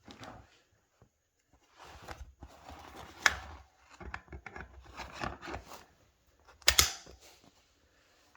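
Handling noise from a Glock 21 pistol: irregular clicks and rattles of the gun's parts, with a sharp click about three seconds in and a louder pair of clicks near the end.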